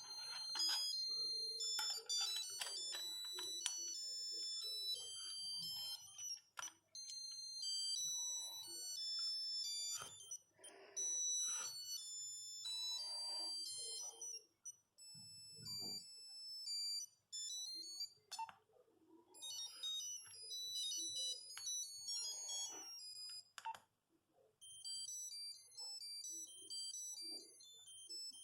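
Nokia 8210 mobile phone playing its monophonic ringtones one after another: quick melodies of thin, high beeps. A few sharp clicks fall between the tunes, and there is a short pause about halfway.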